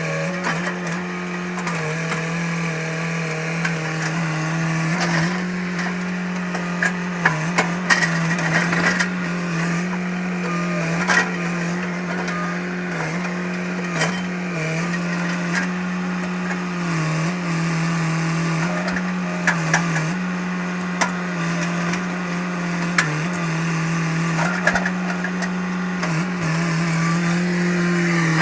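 Hitachi EX100 excavator's diesel engine and hydraulics running steadily at high revs, the pitch sagging briefly now and then as it takes load. Scattered sharp cracks and knocks sound over it.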